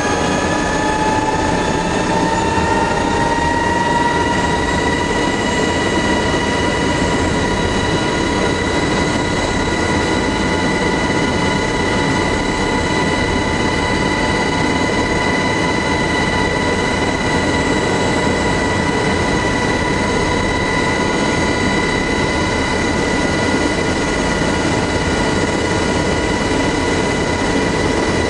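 MH-60S Knighthawk helicopter with its twin turboshaft engines and rotor running: a steady high whine over a dense, even noise. The whine rises a little in pitch over the first few seconds, then holds steady.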